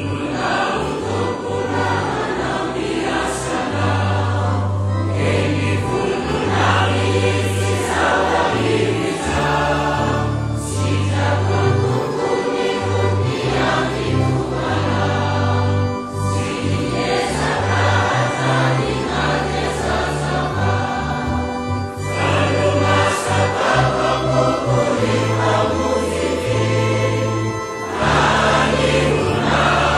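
Choir singing a Malagasy-language hymn over an instrumental backing with a bass line moving in held notes. The singing comes in right at the start.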